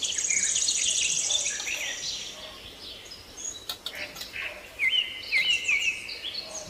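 Birds calling in short, repeated chirps that swoop up and down, with a fast, high trill during the first two seconds.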